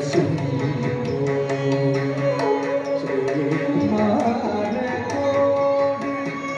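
Carnatic classical dance music for Mohiniyattam: a melody of held notes over steady hand-drum strokes.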